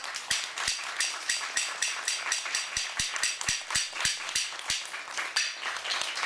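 A small audience applauding: separate sharp hand claps, several a second, unevenly spaced.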